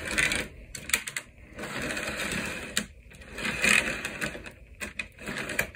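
Irregular small clicks, taps and scraping of plastic and metal parts as an HO-scale model locomotive's chassis is handled and worked to free its motor.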